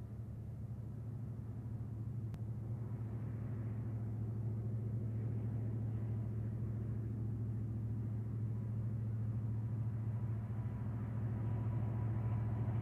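Cotton Belt diesel-electric locomotives working hard under load, their engines making a deep, steady drone that grows louder as the units approach.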